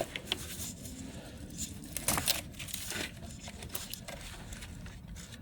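Plastic corrugated wiring conduit and harness wires being handled and bent, with crinkling and rustling and a few small clicks, loudest about two seconds in.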